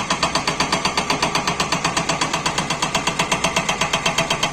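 Hydraulic breaker on a Tata Hitachi 200 excavator hammering rock in a fast, even run of about eight blows a second, over the excavator's engine. The rock is very hard stone that the breaker is making little headway on.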